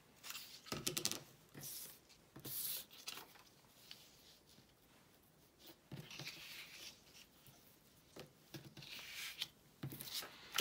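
Paper and card pieces being handled and laid down on a work table: intermittent soft rustles and light taps, the loudest a quick run of taps about a second in.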